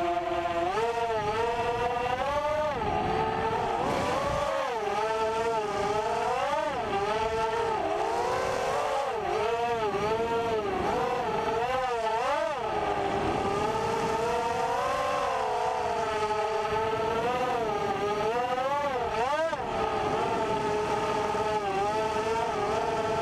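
FPV racing quadcopter's Cobra 2300KV brushless motors spinning 5045 bullnose propellers, a whine whose pitch keeps swooping up and down with the throttle. It is heard from the camera mounted on the quad itself.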